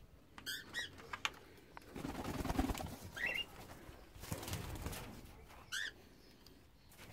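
Cockatiels: a few short, high chirps, with two bursts of wing flapping about two and four seconds in.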